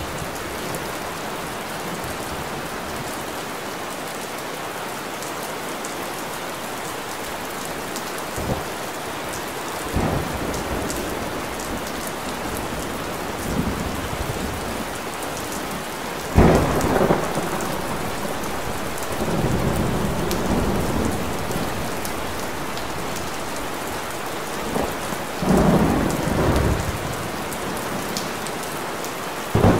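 Steady rain hissing on hard surfaces, with several sudden low rumbles rising over it, the loudest about halfway through.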